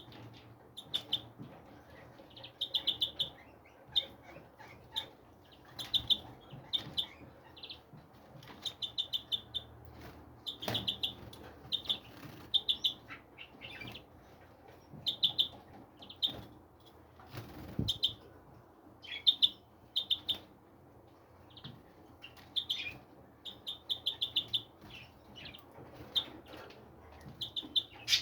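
Small birds chirping over and over in quick clusters of short, high chirps, with brief pauses between the clusters.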